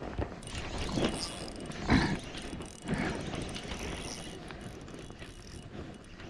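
Mechanical ratcheting and clicking from a hand- or foot-worked mechanism, coming in surges about once a second, the strongest about two seconds in, then easing off.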